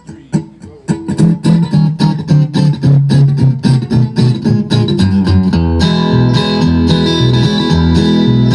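Live country-bluegrass band playing a song's instrumental intro: a few separate plucked guitar notes, then the band comes in with guitar picking and strumming about a second in. The sound grows fuller with more instruments around six seconds in.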